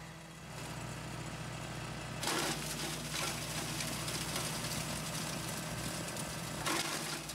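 Honda GX240 single-cylinder engine on a BCS two-wheel tractor running steadily under power, driving a chipper/shredder. Twice, about two seconds in and near the end, there is a short burst of crackling as branches are fed in and chipped.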